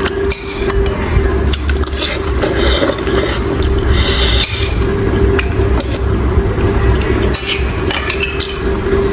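Close-up eating of snakehead fish soup: a spoon clinking and scraping against the bowl, with wet slurping and chewing, over a steady low hum.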